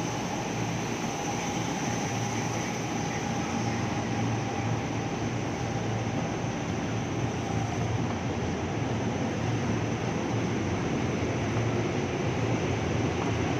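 KRL electric commuter train running steadily: a continuous rumbling noise with a low hum, and a faint whine that fades out about halfway through.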